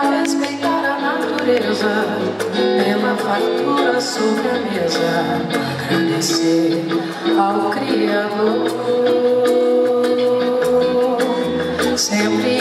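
A woman singing a song live into a microphone, with a band accompanying her, in a large concert hall.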